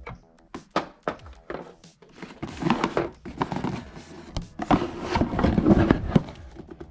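Handling noises: a string of short knocks and clatter with rustling between them, busiest a little past halfway through.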